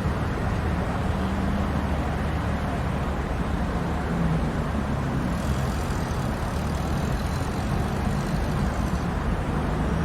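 Steady city street traffic: a continuous wash of passing cars with low engine hum.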